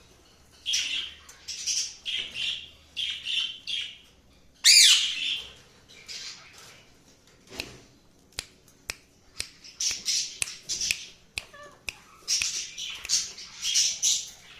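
Cockatiel calling in runs of short, harsh chirps, with one louder rising screech about five seconds in and a few sharp clicks in between.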